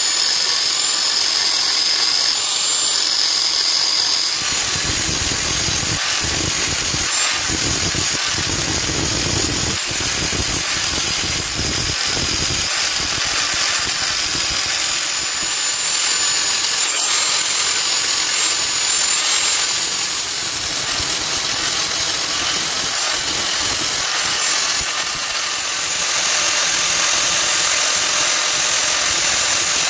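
Angle grinder with a thin cut-off disc running and cutting into the steel edge of a cleaver blade, with a steady high motor whine over the grinding noise. A deeper rumble joins for several seconds in the first half.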